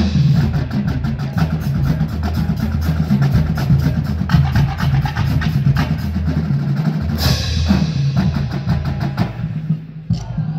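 Marching drumline playing a fast cadence: rapid snare strokes over low drums, with a cymbal crash about seven seconds in. The playing stops near the end.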